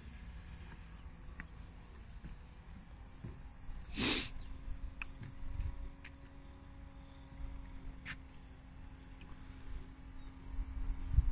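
Faint steady hum of the Robbe Paula model boat's motor as it runs across the water, starting just after a sharp knock about four seconds in, over a low rumble.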